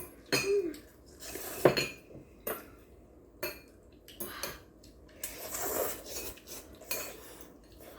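Eating utensils clinking and knocking against bowls and plates, a string of separate sharp clinks, as jjapaghetti noodles are scooped from a shared dish and eaten.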